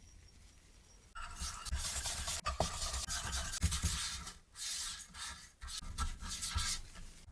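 Kitchen utensil rubbing and scraping in stretches, starting about a second in, with a couple of short breaks.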